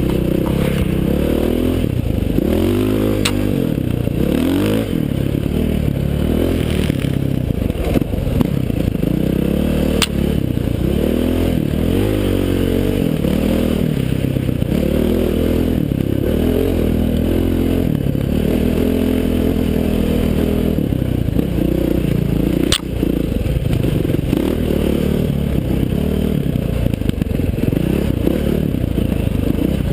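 KTM 530 XC-W dirt bike's single-cylinder four-stroke engine, revving up and down without a break while riding a rough trail. A few sharp knocks come through, about 3, 10 and 23 seconds in.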